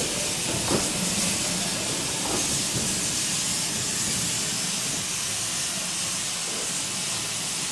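Steady hiss of escaping steam from a BR Standard Class 4MT 2-6-4 tank steam locomotive, with a brief knock about a second in.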